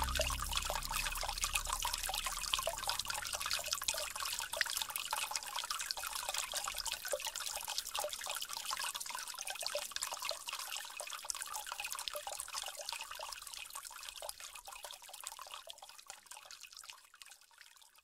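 Trickling, dripping water from a water-sound background track. A low music note dies away in the first second, and the water fades out gradually toward the end.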